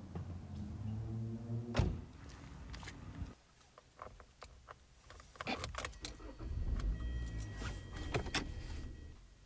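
Car door shutting with a sharp thud about two seconds in, over a low hum. Then a run of jangling and clicking as a bunch of car keys is put into the ignition, with a steady dashboard warning tone over the last few seconds.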